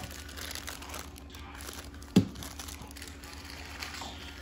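Foil blind bag crinkling as it is handled and pulled from a small cardboard box, with one sharp thump about two seconds in, the loudest sound.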